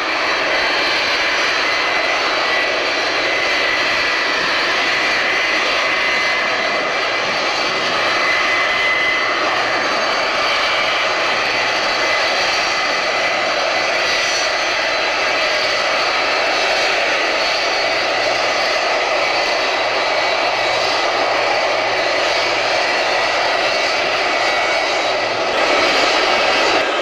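Lockheed L-1011 TriStar's Rolls-Royce RB211 turbofans running as the airliner taxis: a steady jet whine with several high tones held throughout.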